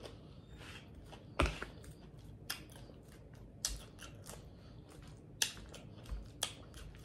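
Close-miked eating of a salad: quiet chewing, with about six sharp clicks as a metal fork picks and taps in a clear plastic salad container, the loudest about one and a half seconds in.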